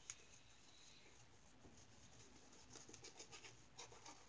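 Faint scratchy rubbing strokes of a wet shave on the face, with a small click just after the start.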